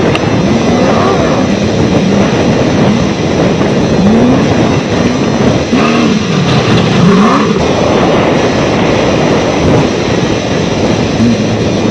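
Off-road race vehicle engines racing at speed, the engine pitch rising and falling again and again as the throttle is worked, over a constant loud rush of noise.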